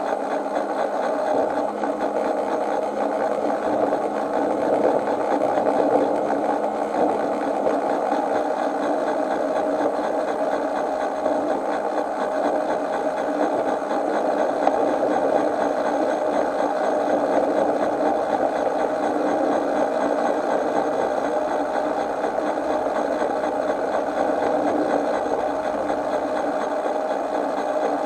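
Miniature railway train running steadily along the track, its locomotive and wheels making a continuous mechanical running noise.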